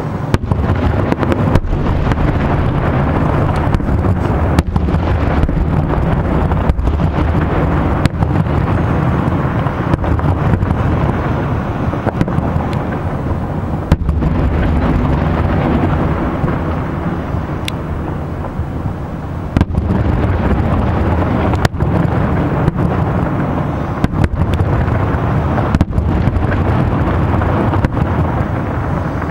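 Fireworks salute: aerial shells bursting in a dense, continuous rumble with many sharp bangs, easing briefly about two-thirds of the way through before building again.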